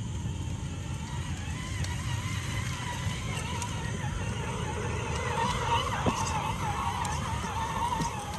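Electric motor and drivetrain of an Axial SCX10 III Ford Bronco RC crawler whining, the pitch wavering up and down with the throttle and growing louder about halfway through, as the truck churns through shallow water.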